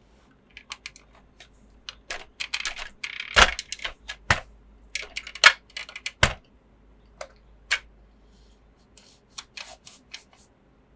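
Toy packaging and hard plastic toy parts being handled: an irregular run of sharp clicks and taps, with a short burst of crinkling about two to three seconds in.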